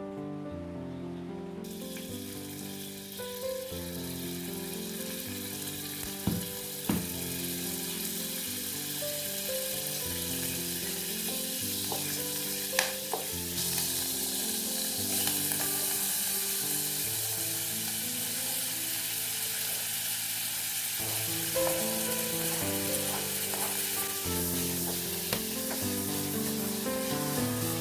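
Food sizzling as it fries in a pan, the hiss starting about two seconds in, with a few sharp clicks. Soft background music plays underneath.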